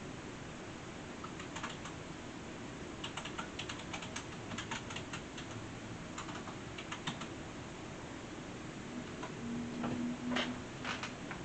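Typing on a computer keyboard: clusters of irregular key clicks, with a few louder clicks and a brief low hum near the end.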